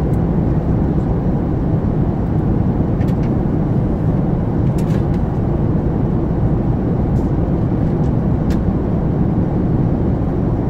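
Steady in-flight cabin noise of a Boeing 737-8 MAX: an even rumble of airflow and its CFM LEAP-1B engines, with a few faint ticks.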